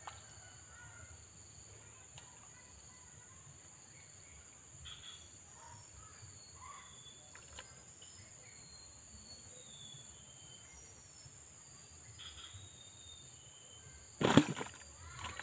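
Insects buzzing in a steady high-pitched drone, with a few faint bird chirps. About fourteen seconds in, a short loud noise cuts through.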